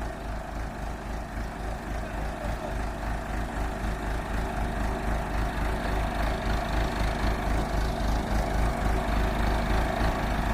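Backhoe's diesel engine running steadily with an even low throb, slowly growing louder as the machine works to get out of the ditch.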